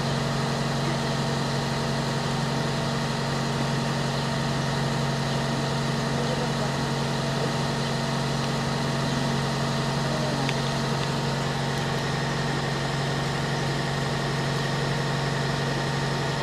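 An engine idling steadily: a low, even hum with overtones that does not change in pitch or loudness.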